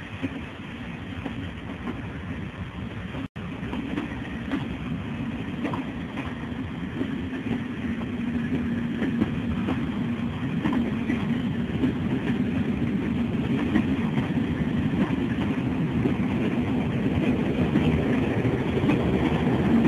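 Passenger train rolling out along the rails, with a steady low rumble and scattered wheel clicks that grow louder as it gathers speed.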